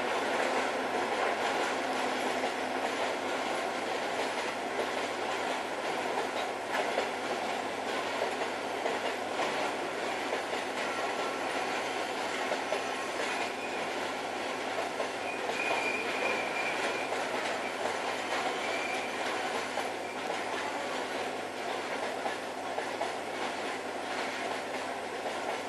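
A train passing over a level crossing, its wheels clattering over the rail joints with some wheel squeal. The level eases a little toward the end.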